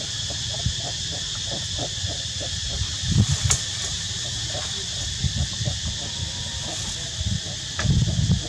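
A steady, high-pitched insect chorus drones throughout over a low, uneven rumble that swells near the end. A couple of faint clicks sound in between.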